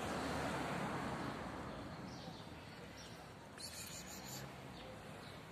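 Street background noise from a passing vehicle, fading away over the first two seconds, then faint short bird chirps with a brief higher-pitched rustle about three and a half seconds in.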